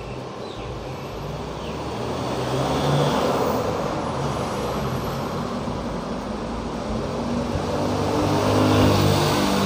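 Engine noise of a road vehicle: a low, steady hum under a rumble that swells about three seconds in and again near the end.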